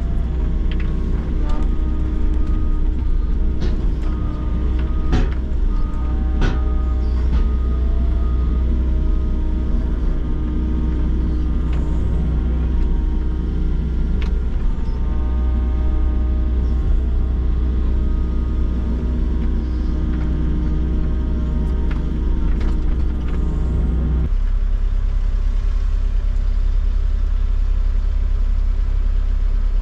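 Volvo excavator's diesel engine and hydraulics working under load, heard from inside the cab: a steady run with a whine of several held tones and scattered knocks and clatter as the bucket handles earth and stones. About three-quarters of the way through the whine drops away and the machine settles to a lower, steadier run.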